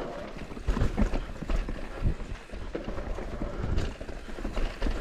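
Intense Tazer MX Pro electric mountain bike riding down a rough dirt trail: tyres rolling over roots and rocks, with a quick, irregular clatter of knocks and rattles from the bike over a low rumble.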